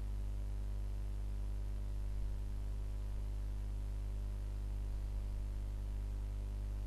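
A steady low hum with a stack of fainter higher tones above it, unchanging throughout, with no speech or other events.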